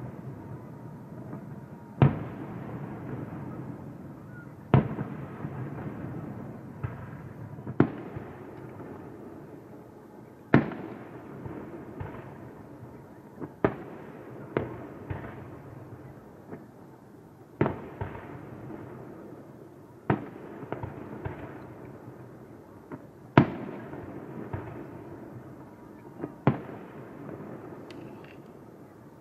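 Aerial firework shells bursting, a sharp bang every one to three seconds and at times several in quick succession, each followed by a lingering echo.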